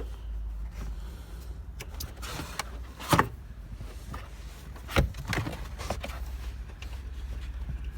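Handling noises from fitting a car's rear shock absorber and its mounting parts: light scraping and two sharp knocks, about three seconds in and again at five seconds, over a steady low rumble.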